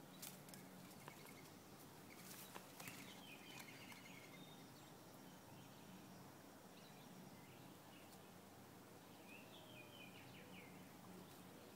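Near silence: faint outdoor ambience with a low steady hum, a few soft clicks in the first three seconds, and two brief faint chirping calls, about two and a half seconds in and again near the end.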